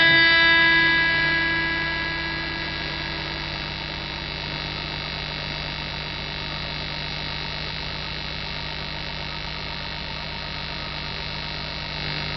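Electric guitar chord ringing out through a small amplifier and fading over the first few seconds, leaving the amplifier's steady hum and buzz.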